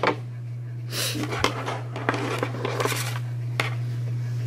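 Plastic Beyblade ripcords being picked up and handled: short scraping and rustling noises with a few light clicks, over a steady low hum.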